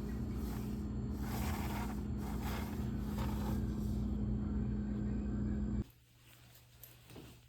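Steady low machine hum over a rumble, cutting off abruptly about six seconds in. Faint light clicks and knocks follow.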